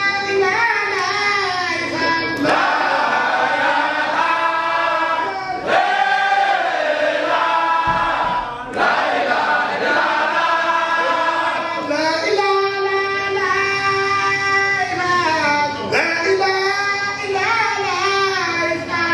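A group of men singing a Mouride devotional chant together, in long held phrases a few seconds apart.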